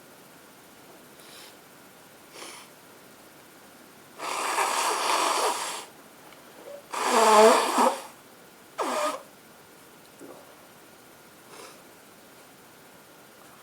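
A woman with a head cold blowing her congested nose hard into a handkerchief: one long blow about four seconds in, then a louder honking blow about seven seconds in, followed by a short snort and a few faint sniffs.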